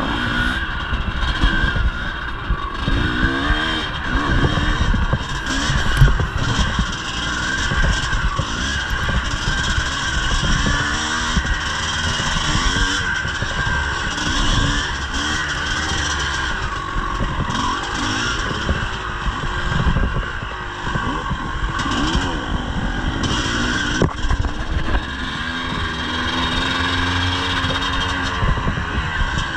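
1983 Yamaha IT 250's two-stroke single-cylinder engine being ridden hard, its revs climbing and dropping over and over, with clatter from the bike and a sharp knock about six seconds in.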